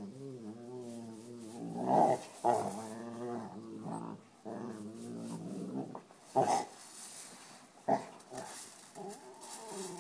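Dog groaning and growling in long wavering moans while it rubs its head and ear on gravel, with short crunching scrapes of the gravel in between. The dog is scratching itchy ears.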